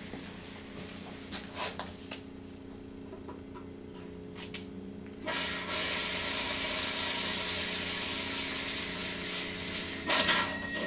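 Termite foaming rig injecting termiticide foam: a steady machine hum, a few valve clicks, then about five seconds in a loud, steady hiss of air and foam starts spraying from the nozzle, with a few clanks near the end.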